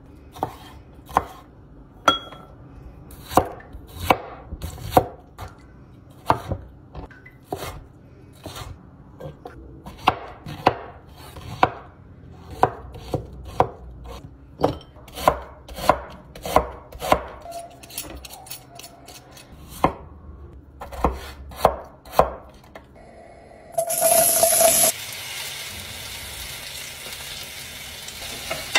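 A knife chopping vegetables on a cutting board in a slow, irregular series of sharp strikes. About 24 seconds in, a hot pan bursts into loud sizzling as food goes in, then settles into a steady frying sizzle.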